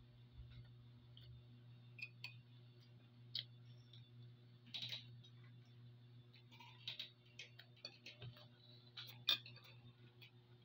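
Faint, irregular clicks and taps of a metal spoon and fork against a plate of noodles and rice, over a steady low hum.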